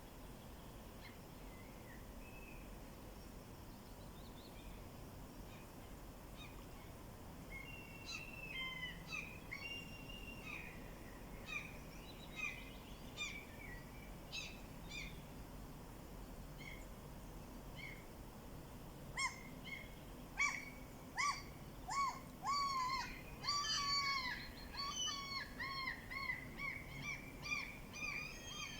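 Wild songbirds singing over a faint steady background hiss. A phrase of quick chirping notes starts about eight seconds in, and a louder, busier run of rapid notes starts about two-thirds of the way through and carries on to the end.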